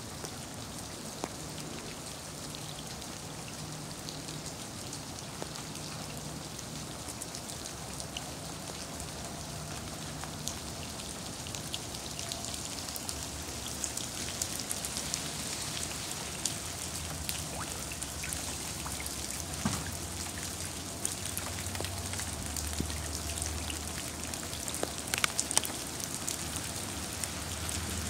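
Wet snow coming down with meltwater dripping, a steady pattering hiss full of small close-by drop ticks. A low rumble joins in about two-thirds of the way through.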